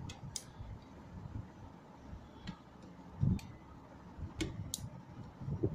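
Irregular sharp clicks, about seven over several seconds, from a hand-held petit four cookie press being worked as the dough is pressed out, with a few soft knocks against the tray.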